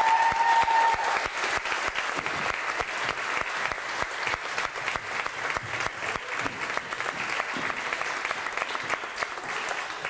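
Audience applauding, many hands clapping. The applause tapers off near the end.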